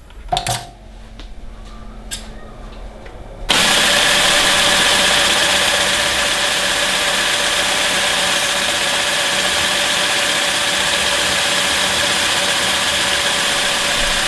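A couple of light clicks, then about three and a half seconds in an electric air compressor for the crane's pneumatic system switches on suddenly and runs steadily with a loud hiss and hum, building up pressure. It runs on without shutting off because, in the owner's view, a leak somewhere in the pneumatic system keeps it from reaching its shut-off pressure.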